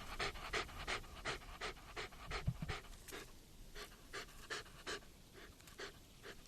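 A puppy panting rapidly, about three quick breaths a second, growing softer in the second half. A brief low thump about two and a half seconds in.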